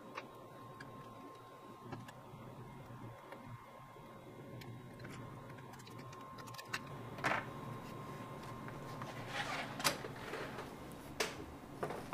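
Faint handling noise as a MacBook Pro logic board with its attached cooling fan is lifted out of the aluminium case and set down on a work mat: small clicks at first, then louder scrapes and knocks from about halfway through, busiest near the end. A thin steady tone runs underneath until about three-quarters of the way through.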